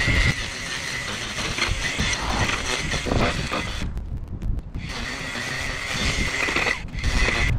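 String trimmer with an edging wheel running along a grass edge, a steady motor whine over the rasp of line cutting grass. It cuts out for about a second near the middle and briefly again near the end.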